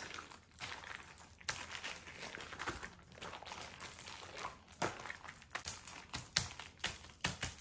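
Plastic Ziploc freezer bag crinkling and rustling as hands knead marinated chicken inside it and press the zipper seal, with a few sharper crackles in the second half.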